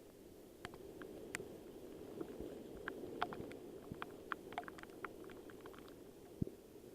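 Steady rain noise with many irregular, sharp little ticks scattered through it, and one low thump about six and a half seconds in.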